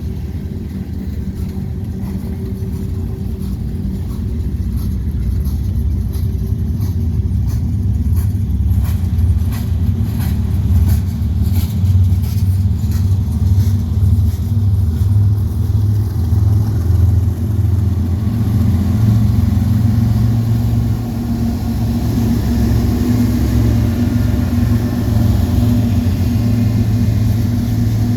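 Freight train rolling past with a steady low rumble, with a run of sharp clicks through the middle.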